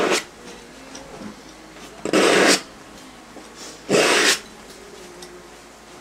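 Bristle brush scrubbing across an oil canvas in three short strokes of about half a second each: one right at the start, one about two seconds in, and one about four seconds in.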